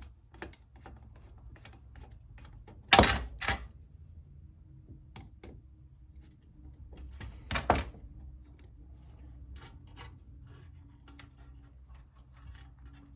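Hard knocks and small clicks from the lawn mower's recoil pull-starter assembly being handled and fitted: two loud knocks about three seconds in, half a second apart, another loud knock near the middle, and light clicking in between.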